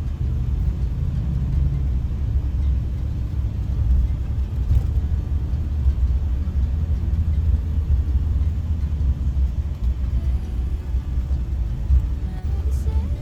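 Steady low rumble of a road vehicle running, like engine and road noise heard from inside a moving bus.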